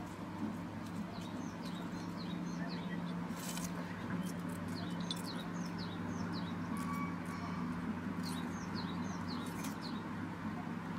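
Small birds chirping, a string of short, quickly falling notes repeated throughout, over a steady low hum.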